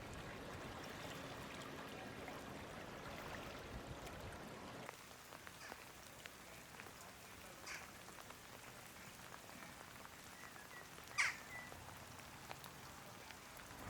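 Faint light rain: a low steady hiss that drops quieter about five seconds in, with a few scattered drops ticking, the loudest about eleven seconds in.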